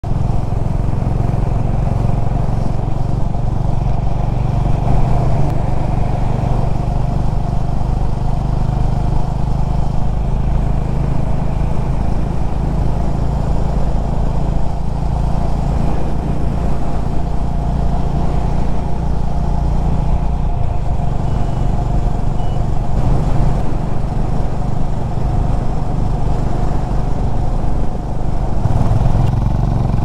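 Honda H'ness CB350's air-cooled single-cylinder engine running steadily through its stock exhaust as the motorcycle cruises, with the engine note shifting slightly about two-thirds of the way through.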